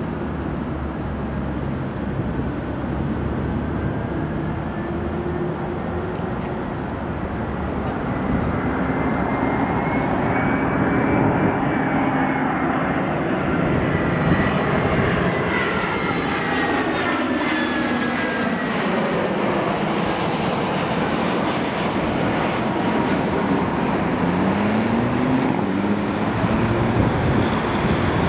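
Airbus A320-214's twin CFM56 turbofan engines at approach power as the airliner flies low overhead on final approach: a steady rushing jet noise that swells about eight seconds in, with a high whine that rises and then falls in pitch as it passes over.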